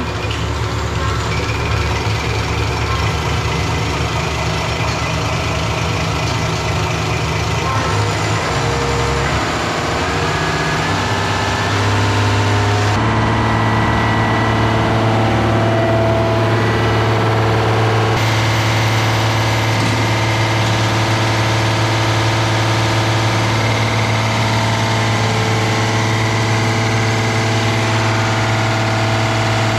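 Diesel injection pump test bench running: its electric drive motor and belt turn the six-cylinder inline injection pump of a Mercedes OM352A engine, which pumps fuel through the test injectors while their output is measured. A steady mechanical drone, whose pitch changes suddenly a couple of times.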